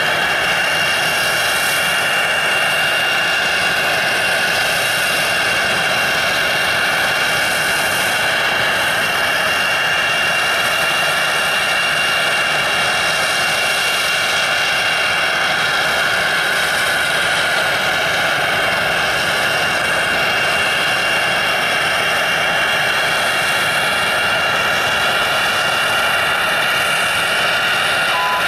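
United Express CRJ-200's twin rear-mounted GE CF34 turbofans at low taxi power: a steady, high jet whine of several held tones over a rushing hiss.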